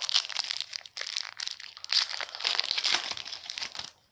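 Trading-card pack wrapper crinkling and crackling as it is torn open and handled, with a dense run of rapid crackles that stops suddenly near the end.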